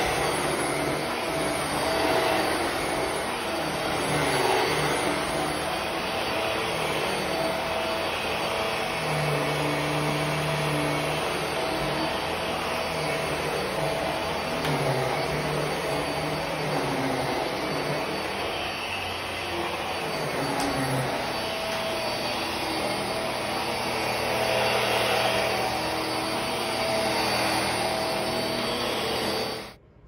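Hart Pet Grade upright vacuum cleaner running as it is pushed over an area rug: a steady motor rush with a thin steady whine. It cuts off suddenly near the end.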